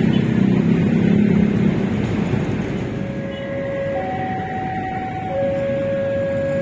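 Low vehicle rumble for the first two seconds, then a steady two-note warning tone that alternates between a lower and a higher pitch, each note held about a second and a half.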